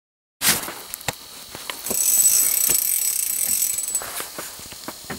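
Small spinning reel on an ice-fishing rod being reeled in: a fast, even ticking of the reel's gears for about two seconds in the middle, after a few scattered clicks and knocks.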